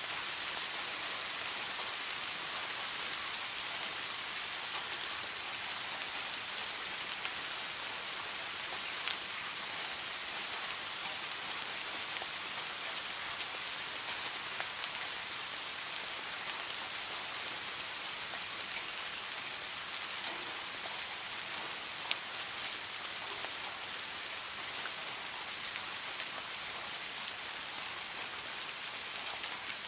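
Steady rain falling, an even hiss with individual drops striking close by now and then, a few louder single drips standing out.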